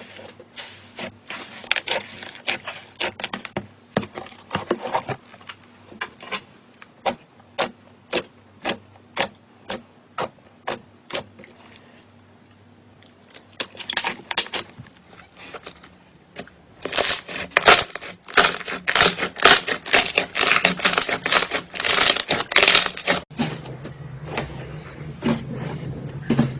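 Slime being squeezed and poked by hand, giving a run of sharp wet pops and clicks, about one or two a second at first, then quick dense runs of them in the second half.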